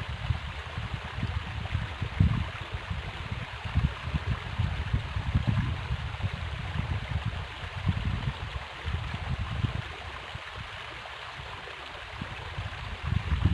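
River water flowing and rushing steadily, with uneven low rumbling surges mixed in.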